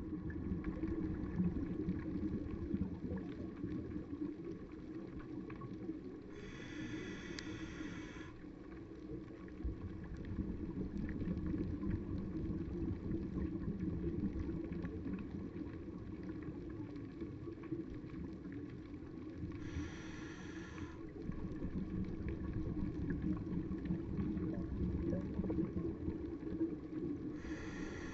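Scuba diver's regulator exhaling through the camera housing: a bubbling hiss three times, each lasting a second or two, over a steady low underwater rumble.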